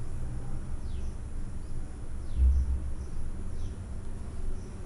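A low steady background rumble with a faint, short high chirp that falls in pitch and repeats about every second and a half, typical of a bird calling. There is a louder low bump about halfway through.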